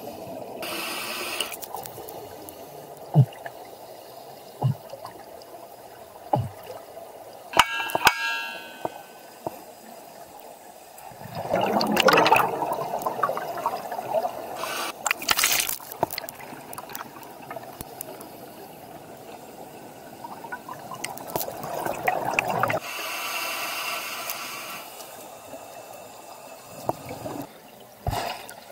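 Scuba breathing heard underwater: a diver's regulator hissing and exhaled bubbles rushing out in swells about two seconds long, roughly every ten seconds, over a steady watery rush, with a few sharp knocks early on.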